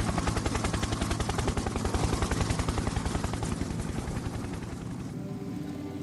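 Music with a fast, rapid pulsing beat over held low tones; about five seconds in the pulsing drops away, leaving sustained tones.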